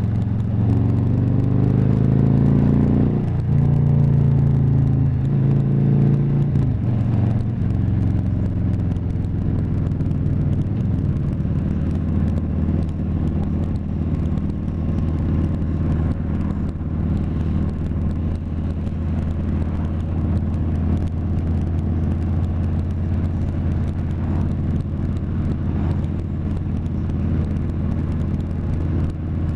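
Harley-Davidson touring motorcycle's V-twin engine heard from the rider's seat as the bike gets under way: it climbs in pitch for the first three seconds, drops at a gear change about three seconds in, pulls again and eases near seven seconds, then runs steadily at cruising speed.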